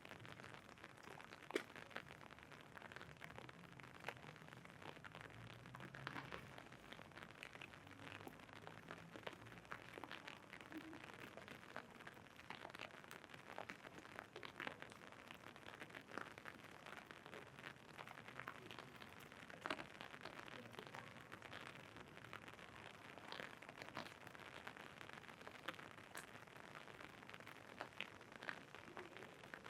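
Rain falling on an umbrella: irregular drops ticking on the canopy over a steady hiss of rain.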